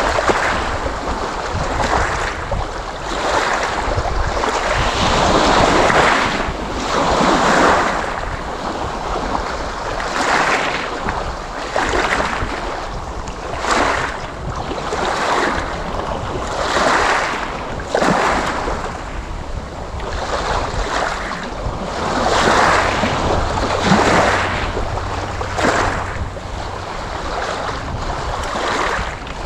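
Sea waves breaking and washing ashore, the surf swelling in repeated surges every second or two.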